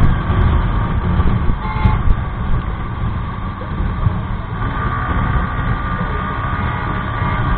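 Wind buffeting a motorcycle-mounted camera at road speed, over a Yamaha R15 V3's 155 cc single-cylinder engine running under way. The engine is shifted down from fifth to fourth gear about halfway through.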